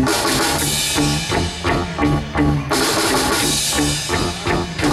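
Live rock trio of electric guitar, electric bass and drum kit playing an instrumental passage of a psychedelic rock song, with a steady drum beat under repeating bass notes. Cymbals come in brighter a little past halfway.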